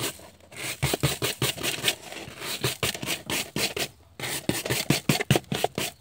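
Stiff bristle hand brush scrubbing back and forth over a ribbed rubber car floor mat, sweeping dirt into a plastic tub, in rapid short strokes with a brief pause about four seconds in.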